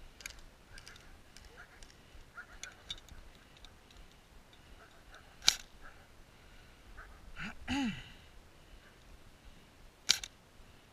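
Two sharp airsoft gun shots about four and a half seconds apart, the second a quick double crack. A short call that rises and falls in pitch comes between them, over faint scattered clicks.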